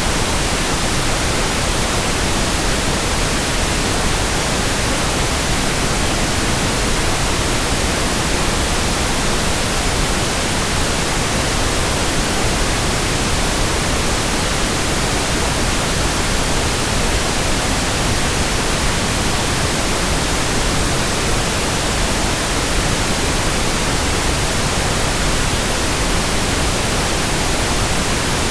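Steady synthetic pink noise: an even, unchanging hiss spread across all pitches, with no breaks or changes.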